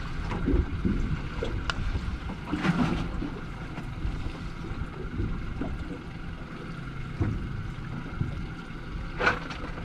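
Steady low rumble of wind on the microphone and water around a small fishing boat, with a few scattered knocks and clicks on deck.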